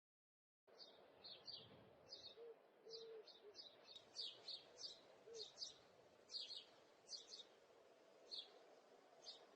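Faint bird chirps: many short, high notes repeated irregularly over a low hiss, starting abruptly just under a second in.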